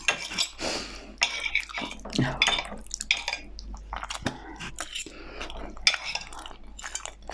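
Knife and fork scraping and clinking on a ceramic plate as a portion of lasagna is cut, in irregular short clicks and scrapes.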